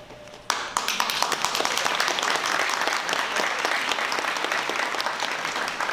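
Audience applauding, breaking out suddenly about half a second in and going on steadily.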